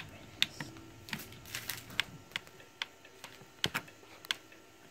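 Light, irregular taps and clicks of a phone being handled and tapped with fingers while it records, about fifteen over a few seconds, with one louder knock about two-thirds of the way through.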